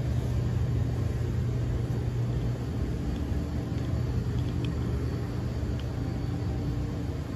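Steady low hum and rumble of background machinery, even in level throughout, with a few faint ticks in the middle.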